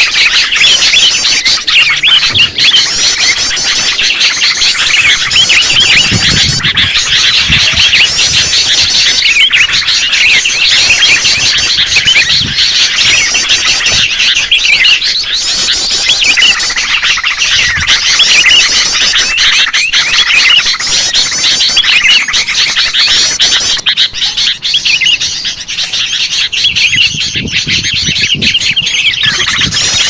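Many sooty-headed bulbuls calling and chattering over one another in a dense, continuous chorus of quick chirps and squawks. It is a noisy flock chorus of the kind used to lure bulbuls, and it thins briefly about two-thirds of the way through.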